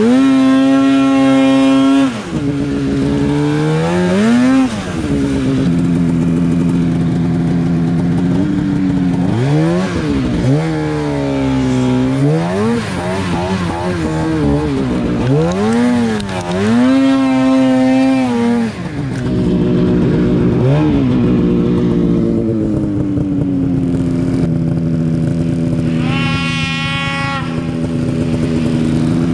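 Polaris Pro RMK 800 mountain snowmobile's two-stroke engine revving up and dropping back again and again while the sled is ridden through deep snow. A second, higher engine note comes in briefly near the end.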